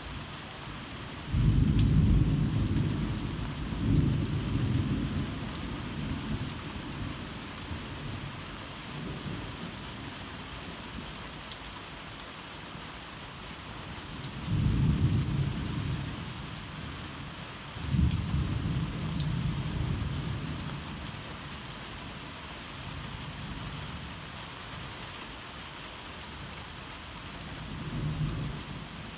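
Heavy rain falling steadily, with thunder rolling through it: a loud rumble starts about a second and a half in with another peak soon after, two more rumbles come around the middle, and a fainter one near the end.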